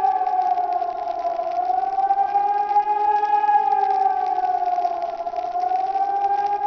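ECN 2400 electronic civil-defence siren sounding the 'Warnung' signal: a steady wail whose pitch dips and rises again about every four seconds. Further sirens can be heard behind it.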